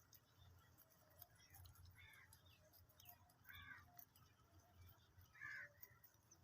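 Near silence, with three faint short chirps spaced a second or two apart and a few faint ticks.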